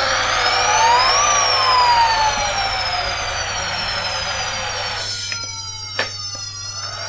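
Halftrack engine sound effect: a whining engine note that rises about a second in and then falls slowly, over a steady hissing rumble. Near the end the hiss drops away, leaving only the falling whine, with a single click.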